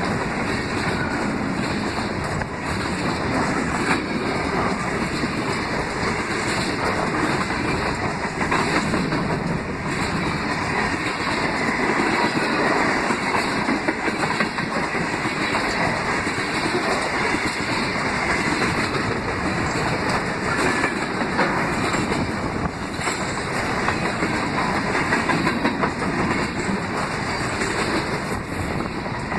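Freight train rolling past, its cars' wheels clacking steadily over the rail joints.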